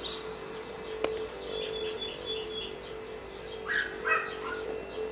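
Birds chirping and calling: many quick, high, falling chirps in a run, with a louder cluster of calls about four seconds in. A steady low hum runs underneath, and there is a single sharp click about a second in.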